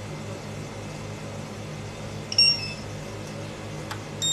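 A cashier computer being switched on: a steady low machine hum, a short electronic beep about two seconds in, and a quick cluster of beeps right at the end.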